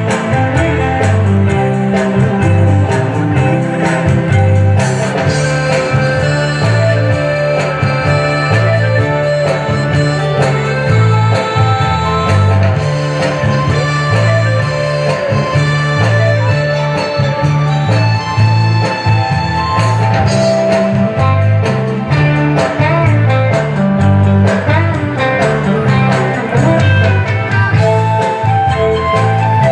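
Pa-O traditional dance music, loud and continuous, with a bass line stepping through notes in a steady rhythm under a plucked-string melody.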